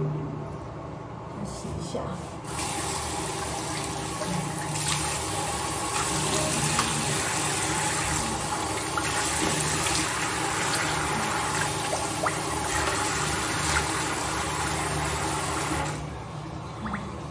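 Bathroom sink tap running steadily while water is splashed onto the face from cupped hands. The water comes on about two seconds in and stops shortly before the end.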